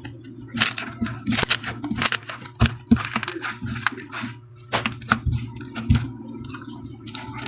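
White-glue slime being squished and pulled by hand, giving irregular clicks and pops as air bubbles trapped in it burst.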